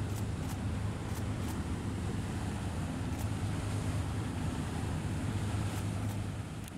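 Motor boat running on open water: a steady low engine drone with water rush and wind on the microphone.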